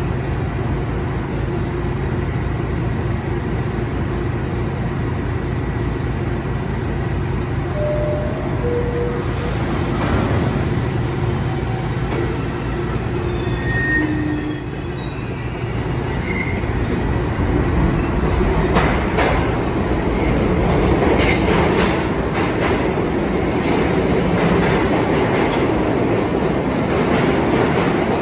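R68/R68A subway train standing at the platform with a steady low hum, then pulling out and accelerating past. A short two-note chime sounds about eight seconds in. From about 18 seconds in the sound grows louder, with wheels squealing and clacking over the rail joints as the cars go by.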